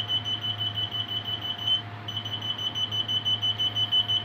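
A high-pitched electronic beeping tone, pulsing about five times a second, that breaks off briefly about two seconds in, over a steady low hum.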